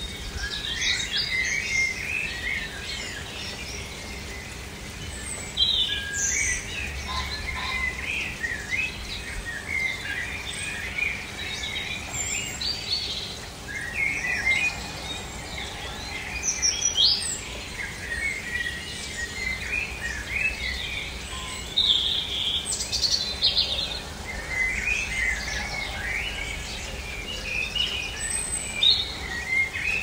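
Several songbirds singing and calling at once, a busy chorus of overlapping chirps and trills, over a low rumble of wind.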